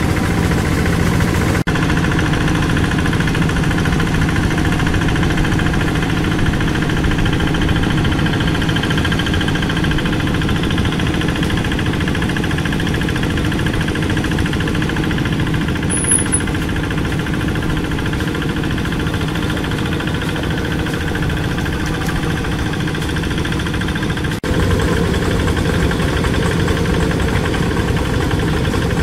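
Single-cylinder Kubota diesel engine of a two-wheel hand tractor running steadily under load while it grades topsoil in a flooded paddy. The sound breaks off sharply twice, about a second and a half in and near the end, and is louder after the second break.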